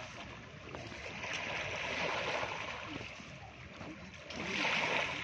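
Floodwater of a swollen river rushing past and washing against the bank, a steady water noise that swells about two seconds in and again near the end.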